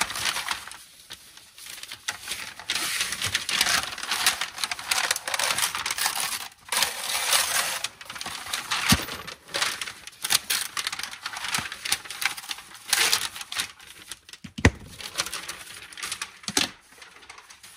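Packaging being torn open and handled: a continuous crackly rustling and crinkling of wrapping, broken by a few sharp clacks, the loudest nearly fifteen seconds in.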